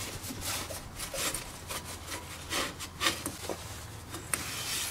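A cloth shop rag wiping wet brake cleaner off a rear drum brake's backing plate, shoes and hub: irregular rubbing strokes on metal with a few light knocks.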